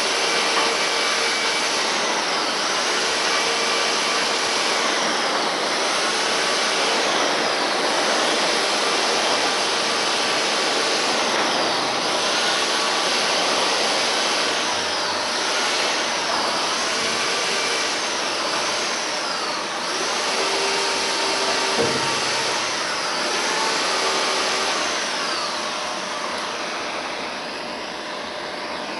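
Steady rushing hiss of a gas torch heating body solder on the weld seams of a steel windscreen frame.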